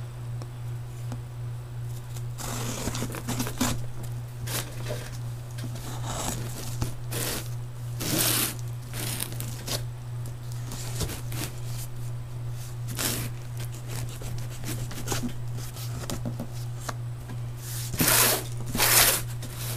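Packing tape torn from a cardboard shipping box and the box handled, in irregular ripping and rustling bursts, louder near the end. A steady low hum runs underneath.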